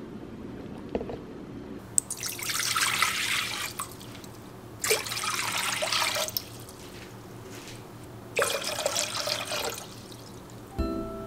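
Water poured into an empty stainless steel pot, in three separate pours of about a second and a half each.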